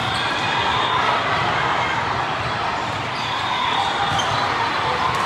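Echoing din of a large hall full of volleyball games: balls being hit and bouncing, over many voices chattering in the background.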